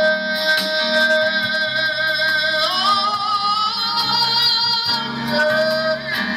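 Gospel song with guitar accompaniment: a singer holds a long wordless note with vibrato. The voice slides up to a higher held note about three seconds in.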